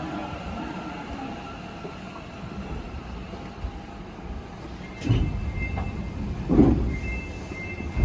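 Sapporo subway 8000 series rubber-tyred train pulling out of a station and running into the tunnel. The running rumble gets suddenly louder about five seconds in and surges again shortly after, with a thin high whine over it.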